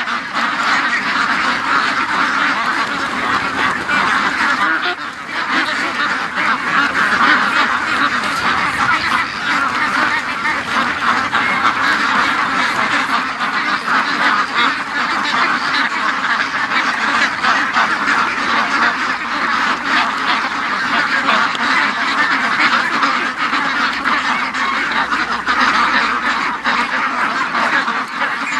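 A large flock of domestic ducks, mostly white Pekins, quacking loudly and continuously in a dense chorus as they rush out of their pen.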